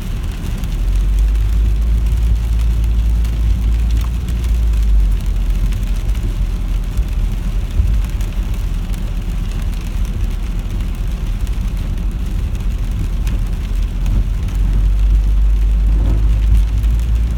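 A car driving in the rain, heard from inside the cabin: a steady low engine and road rumble with an even hiss of rain and wet tyres.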